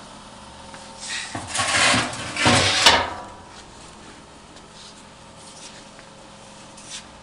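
Autometrix X5 cutting table homing: the gantry and tool-head carriage travel along their rails in a loud sliding run of about two seconds that stops abruptly, followed by a few faint clicks.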